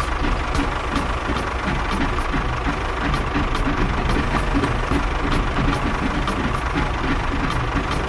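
Engine running steadily with a regular low knock, the motor of a mini tractor.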